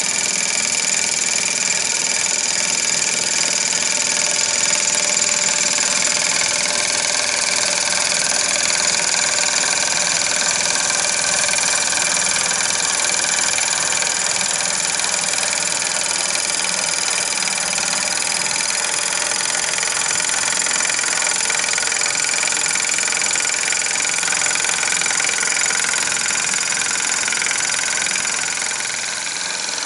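Mastrand toy steam traction engine running steadily at speed, its rear wheels spinning on a rolling road of ball-bearing rollers: a continuous mechanical whirring with a high whine and hiss, easing off slightly near the end.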